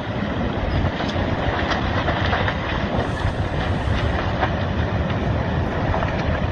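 A landslide of earth and debris sliding into the sea: a continuous rumble, steady in level, with many small cracks and snaps scattered through it.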